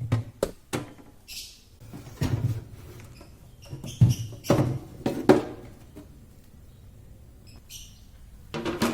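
Scattered knocks, thuds and clatter of household containers and items being moved about by hand, with two short rustles.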